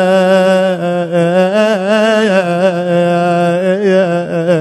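A man's voice chanting an Arabic lament (marthiya), drawing out a long melismatic note on one syllable with wavering ornaments and a brief rise in pitch about two seconds in.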